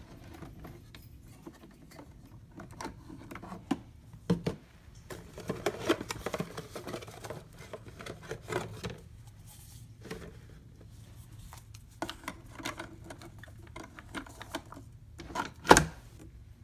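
Keurig coffee brewer being loaded by hand: scattered plastic clicks and rustling as a K-cup pod is taken from its cardboard box and set in the holder. Near the end comes a sharp snap as the brewer's lid is pressed shut.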